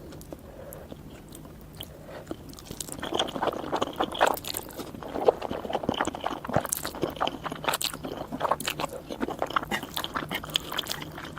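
Close-miked chewing of noodles: many quick, irregular wet mouth clicks and smacks, quieter at first and dense from about three seconds in.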